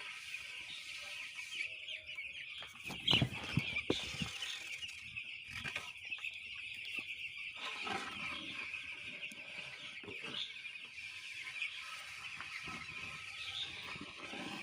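A shed full of week-old broiler chicks peeping constantly in a dense high chorus. About three seconds in come a few louder rustles and knocks, from the floor litter being stirred with a stick.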